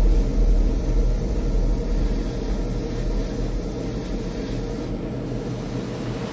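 Airbrush spraying paint onto a small model car part, a steady hiss over the low rumble of the spray booth's extractor fan.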